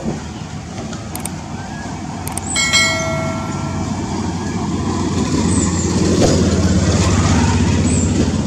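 Road traffic: a vehicle engine runs steadily and grows louder from about five seconds in. A brief horn-like tone sounds about two and a half seconds in.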